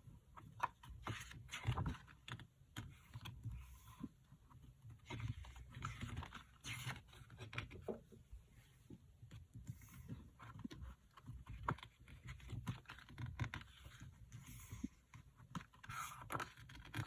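Light clicks, taps and rustling of album packaging and its paper and plastic contents being handled, irregular throughout.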